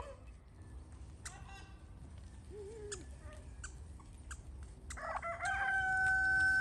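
A rooster crowing once in the second half, its call rising and then ending in one long held note; before it only faint scattered ticks and short calls.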